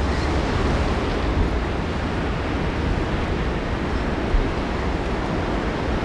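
Strong wind, a steady rushing noise with a low rumble.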